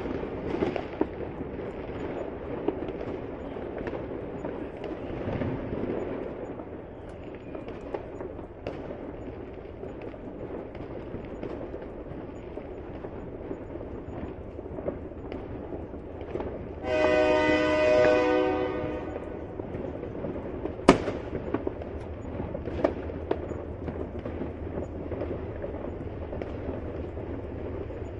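Fireworks and firecrackers popping and crackling continuously. Past the middle a horn sounds for about two seconds, and shortly after it comes a single sharp, loud bang.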